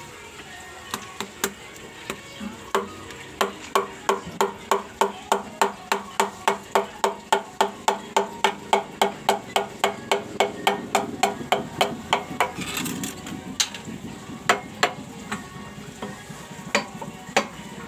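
Hammer tapping a piston down through a ring compressor into the cylinder of a Dongfeng R175 single-cylinder diesel. A steady run of light, sharp taps, about three a second, starts about three seconds in and breaks off after about twelve seconds into a few scattered knocks.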